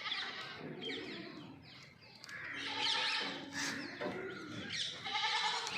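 Goats bleating: a loud, harsh call about three seconds in, and another bleat starting near the end.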